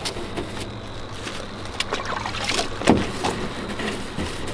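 Hand-held scrub brush rubbing over the painted steel door panel of a Chevrolet Silverado 2500HD pickup, in irregular strokes, the loudest about three seconds in.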